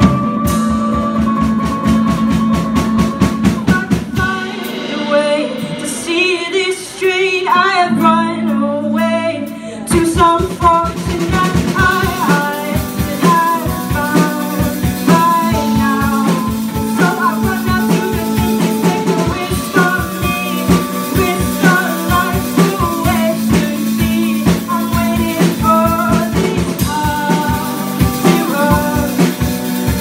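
Live rock band playing: electric guitars, a drum kit and a singer. The drums and low end drop out for about six seconds from about 4 s in, then the full band comes back in with the singing.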